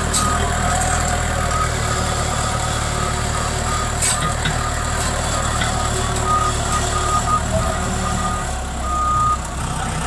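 Case Super E backhoe loader's engine running steadily under load as its loader forks drag a long cedar log out of a pile, easing off briefly near the end.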